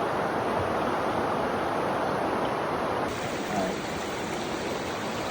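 Stream water flowing, a steady even rush of noise.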